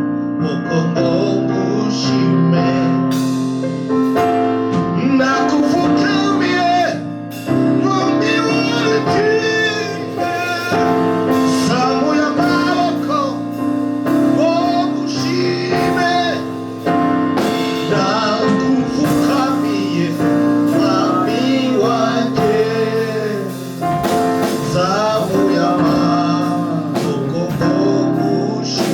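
Gospel worship music: singers with a keyboard playing sustained chords.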